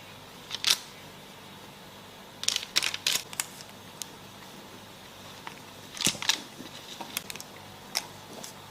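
Scattered sharp clicks and light knocks of small hard objects: one early, a quick cluster a couple of seconds in, and another cluster a little past the middle.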